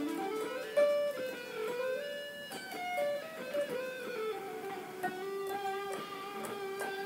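Electric guitar played through a JamStack's small speaker via a phone amp-simulator app, picking melodic single-note lines with some slides between notes.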